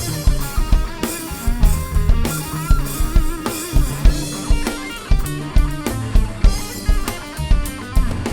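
Live band music: drum kit keeping a steady beat of about two strong hits a second under electric guitar and bass lines.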